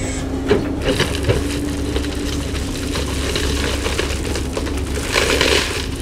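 Roots and stump wood of a Monterey cypress cracking and splintering as an excavator's grapple pushes the stump to loosen its roots. There are a few sharp cracks in the first second and a half and a longer crackling near the end, over the steady run of the excavator's engine.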